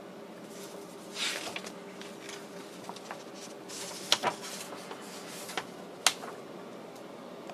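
Paper pages of a construction manual rustling as it is opened and handled, with a few sharp clicks and taps about four and six seconds in, over a faint steady hum.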